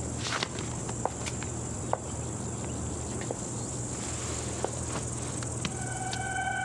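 Crickets chirping steadily, a high continuous trill, with faint scattered taps and rustles of movement; soft sustained music tones come in near the end.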